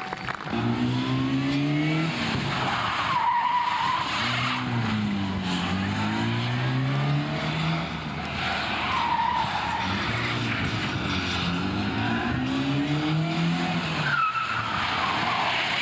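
A Rover Mini's four-cylinder engine driven hard in a stunt display, revving up and down over and over, with tyre squeals as the car is thrown through tight turns, three times (about 3 s in, 9 s in and near the end).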